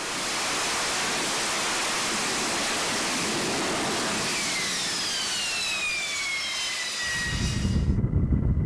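Jet aircraft engine roaring steadily, with a high whine that falls in pitch over the second half. Near the end it cuts to a lower rumble.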